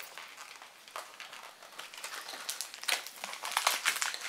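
Blind-box toy packaging crinkling and rustling as it is handled and opened: a run of short crackles, sparse at first and busier and louder in the second half.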